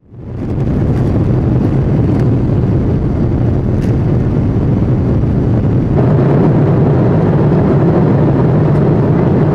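Steady low vehicle rumble that fades in at the start and grows slightly louder about six seconds in.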